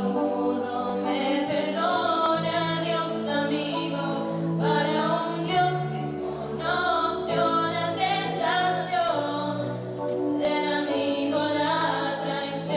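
A song playing: singing voices over music with held bass notes.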